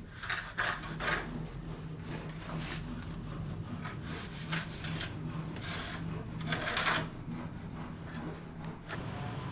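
Irregular scraping or rasping strokes of a tool on a hard surface, the loudest near the start and about seven seconds in, over a steady low hum.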